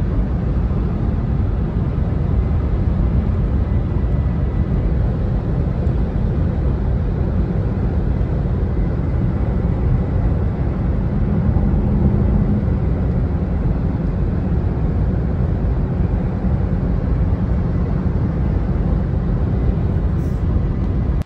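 Steady low rumble of tyre and road noise inside a car's cabin at highway speed.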